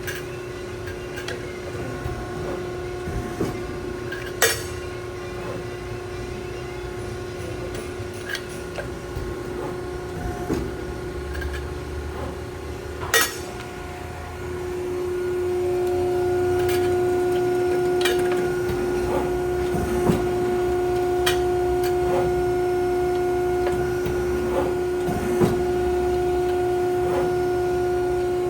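Accurpress 25-ton hydraulic press brake running through its bending cycles. The hydraulic pump gives a steady hum that steps up louder about halfway through. Sharp clicks and knocks come over it, two loud ones in the first half and lighter ones later.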